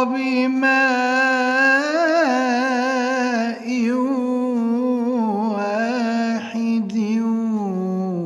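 A male reciter chanting the Quran in melodic tajwid style, drawing out long vowels with wavering, ornamented pitch, with brief breaks about three and a half and six and a half seconds in.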